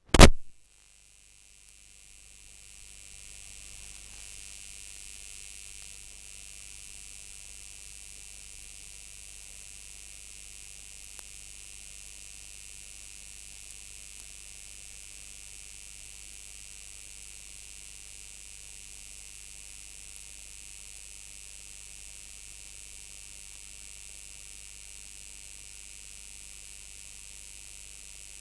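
Steady faint hiss over a low hum, with a few tiny ticks: background noise with no speech.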